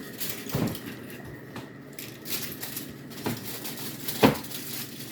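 Aluminium foil crinkling as it is pressed and folded around a dish, in several short crackly bursts, the loudest near the end.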